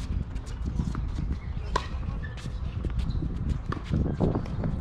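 Tennis rally on a hard court: sharp pops of rackets striking the ball and the ball bouncing, with quick footsteps, over a steady low rumble.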